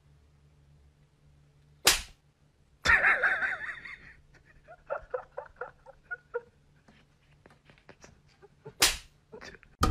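Two sharp whip-crack sound effects, about seven seconds apart, laid over a kitten's swats at a cat. A short raspy burst follows the first crack, then a few faint clicks.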